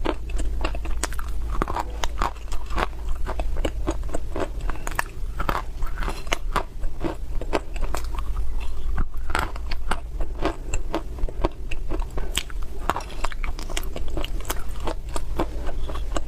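Dry clay (loess) being bitten and chewed, giving a continuous run of crisp crunches and crackles.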